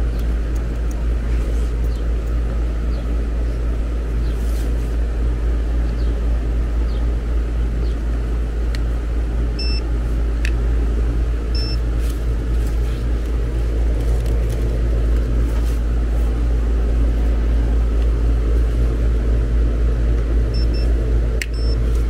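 Outdoor air-conditioning condensing unit running, its compressor and condenser fan giving a steady loud hum. A few short electronic beeps from a handheld test instrument sound near the middle and again near the end.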